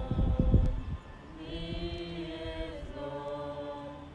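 A group of people singing a slow hymn together, holding long notes. Loud low rumbling covers the first second.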